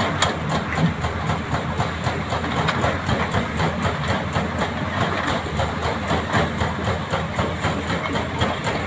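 Hydraulic rock breaker on an excavator hammering hard rock in a rapid, steady rhythm, over the excavator's diesel engine running.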